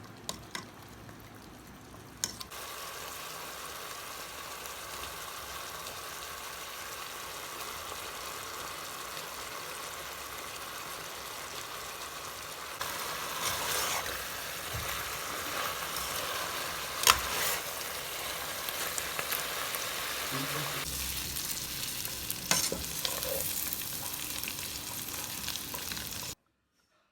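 Food frying in a hot pan, with a steady sizzle and the occasional clack of a spoon stirring against the pan. The sizzle starts a couple of seconds in, gets louder about halfway through, and cuts off abruptly near the end.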